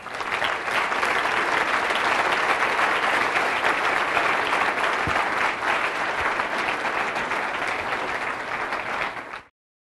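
Audience applauding, a steady round of clapping that cuts off abruptly near the end.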